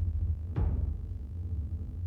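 Improvised noise music from drums and turntables: a steady low rumble with one sharp drum-kit strike about half a second in that rings out.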